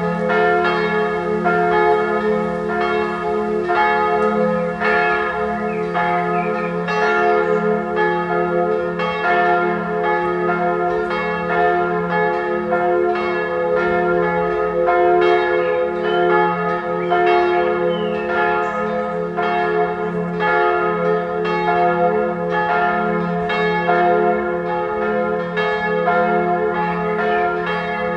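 Full peal of three swinging church bells: two 1979 Perner bells tuned f¹ and a♭¹, a minor third apart, with a small high b² bell as a cymbal above them. Strokes overlap in an uneven, continuous stream over a steady hum.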